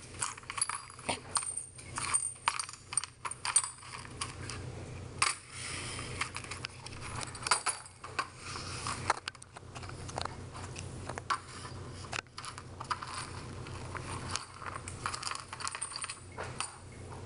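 Broken glass shards swept with a bristle brush into a dustpan on a hard bench top: irregular small clinks and scrapes of glass, over a low steady hum.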